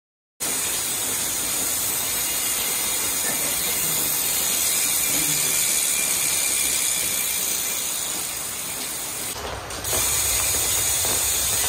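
Rear hub of an LDCNC 700c road wheel spun by hand, its freehub pawls ratcheting in a fast, steady buzz. The sound starts about half a second in and dips briefly before picking up again near the end.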